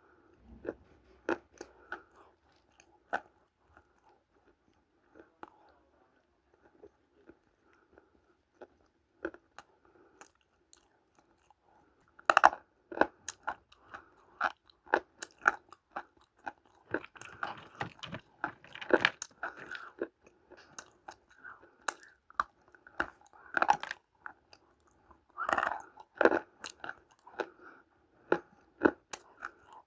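Dry Multani mitti (fuller's earth clay) being bitten and chewed: sharp, crisp crunches that come sparsely at first, then thick and louder from about twelve seconds in.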